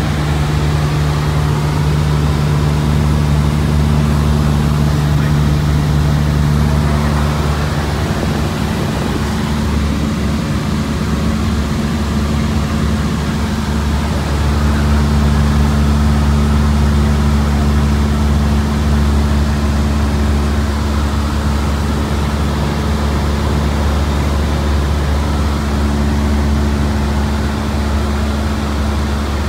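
Steady drone of a Cessna 172's piston engine and propeller in cruise, heard inside the cabin. The pitch wavers for a few seconds in the middle, then settles again.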